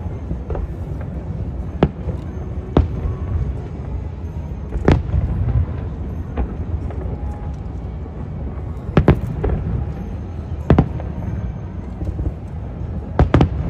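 Aerial firework shells bursting: sharp bangs every one to four seconds, with two bangs in quick succession about nine seconds in and again near the end, over a steady low rumble.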